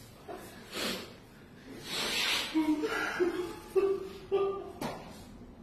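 Indistinct voices in short fragments, with soft rustling handling noise and a sharp click near the end.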